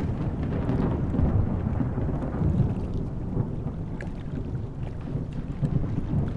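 Airbus helicopter running, heard as a steady, uneven low rumble.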